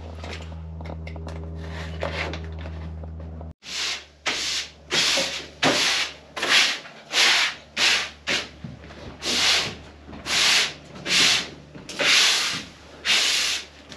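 A steady low hum that cuts off suddenly about three and a half seconds in, followed by a long run of rubbing strokes, about three every two seconds.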